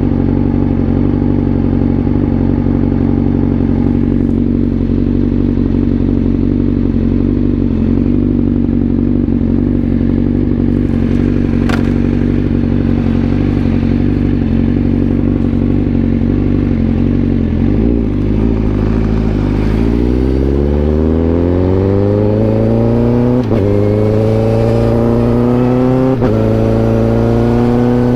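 Honda CBR1000RR-R SP's inline-four engine holding a steady low note for most of the time, then pulling away with a steadily rising pitch. Near the end the rise is broken twice by quick upshifts.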